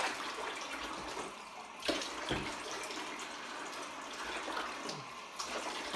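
Water running into a bathtub from the tap, with light splashing as hands rub water over a wet puppy standing in the shallow bath. Two short, sharp sounds stand out about two seconds in.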